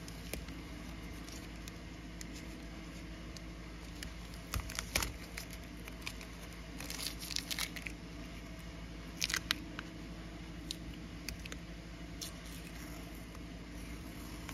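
Blue painter's masking tape being peeled and torn off a speaker, crinkling and crackling in a few short bursts with scattered clicks in between. A steady low hum runs underneath.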